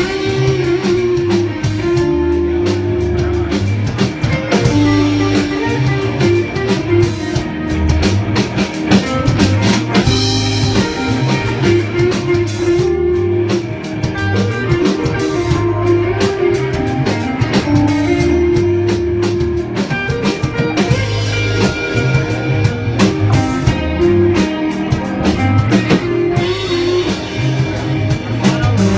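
Live rock band playing an instrumental passage with guitar, bass and drum kit, without vocals.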